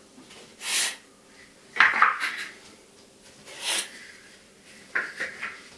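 Packaging being handled and moved: a series of short scrapes and rustles with light knocks, the loudest knocks about two seconds in and another cluster near the end.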